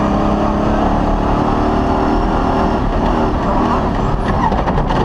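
Cross-country rally car engine running hard at speed, heard from inside the cabin, with the rumble and rattle of the car on a dirt track. A run of sharp clicks and knocks comes about four seconds in.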